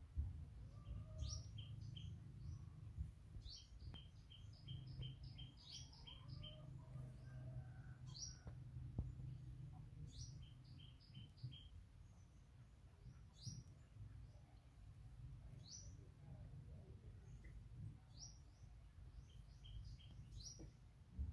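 Faint songbird chirping. Every two seconds or so comes a quick rising chirp, several times followed by a run of short rapid chirps, over a low steady background rumble.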